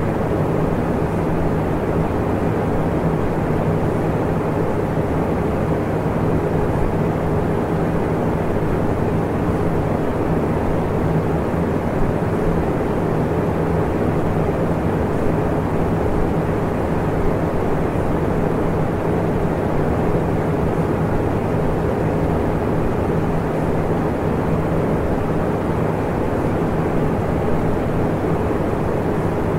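Steady, unchanging low rumbling noise with a faint hum running through it, a constant background drone with no words heard above it.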